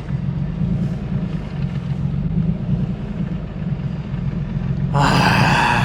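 Nissan S15 Silvia Spec-R's turbocharged four-cylinder engine running with a steady low drone and no rise in revs: the throttle is giving no response. About five seconds in, a louder, brighter rushing sound with several high tones comes in briefly.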